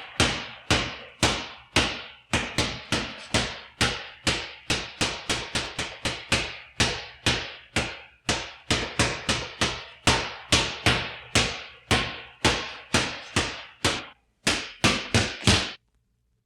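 Basketball being dribbled on a hard floor: a steady run of bounces, about two to three a second, each with a short ring. After a brief pause near the end come a few quicker bounces, then the dribbling stops.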